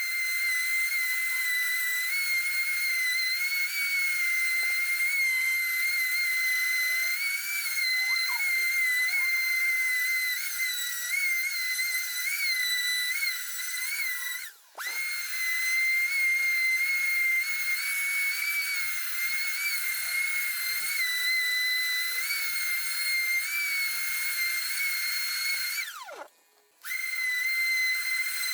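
Electric sander's motor running continuously with a steady, high-pitched whine that wavers slightly in pitch. It cuts out briefly twice, about halfway through and near the end.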